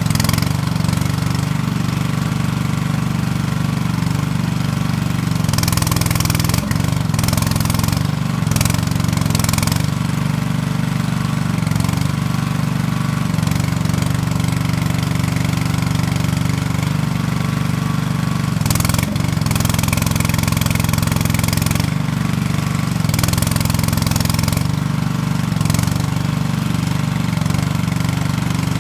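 Skid-steer loader's engine running steadily at a constant speed, with several short bursts of hissing noise over it.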